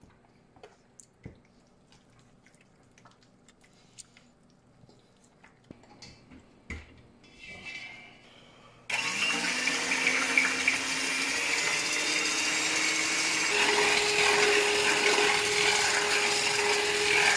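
Faint clicks and taps of utensils against a stainless steel bowl. About nine seconds in, an electric hand mixer switches on and runs steadily, whipping egg whites to a foam in the steel bowl. Its hum steps up in pitch about four seconds later.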